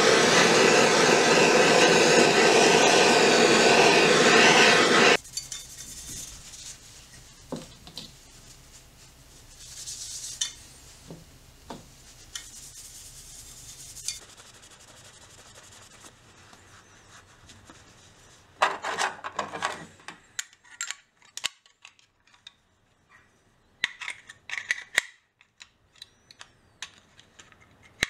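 Handheld butane/propane gas torch on a cartridge, burning with a steady loud hiss as it heats a small steel lock part, cutting off suddenly about five seconds in. After it, cloth rubbing over steel parts and small metal clicks and taps as the lock parts are handled.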